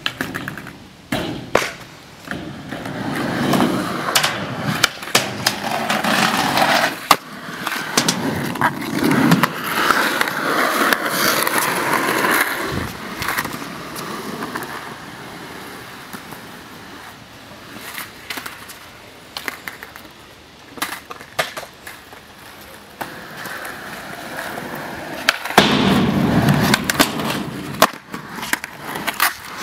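Skateboard wheels rolling over a concrete skatepark, with sharp clacks of the board hitting the surface again and again as the skater pops and lands tricks. The rolling comes in two long runs, the second starting about 24 seconds in.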